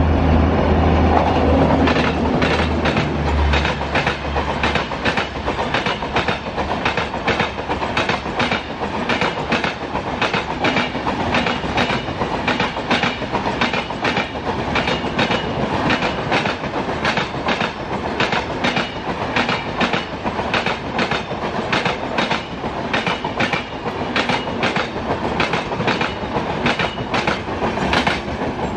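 WAP-7 electric locomotive and its express passenger train passing at speed. A low hum from the locomotive fades within the first few seconds. Then come a steady rush and a fast, even clickety-clack of the coach wheels over rail joints, which stops near the end as the last car goes by.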